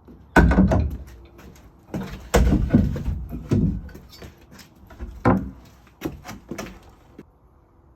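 A series of irregular knocks and thumps, about six in all, the loudest about half a second and two and a half seconds in, ending about seven seconds in.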